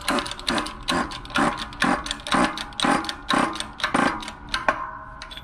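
Hydraulic bottle jack on a shop press being hand-pumped, its handle and valve giving a regular click-clack about twice a second as it presses a new bearing onto a differential's snout, a compression fit. A short metallic ring sounds near the end as the pumping stops.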